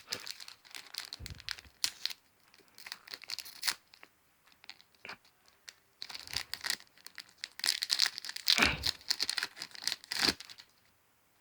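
Foil trading-card booster pack being torn open and crinkled by hand, in several irregular spells of tearing and rustling.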